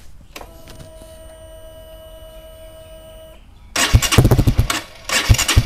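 Honda RS150 motorcycle with its engine bored to 62 mm, started through a Cardinal Racing 32 mm Cutting Standard exhaust with the silencer insert fitted. A faint steady whine lasts about three seconds, then the engine catches and runs loudly, dipping briefly about a second later before picking up again.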